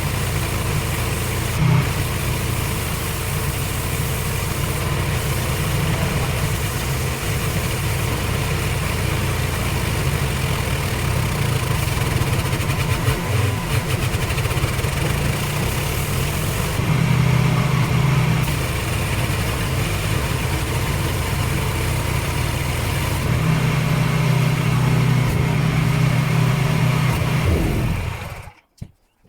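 Pressure washer running with its jet spraying: a steady motor hum under a wide hiss of water. The motor note grows stronger for a second or two about halfway through and again for several seconds later on, then the sound cuts off suddenly near the end.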